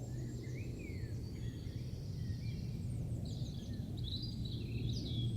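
Countryside birdsong ambience: several small birds chirping and twittering in short rising and falling calls, over a steady low hum.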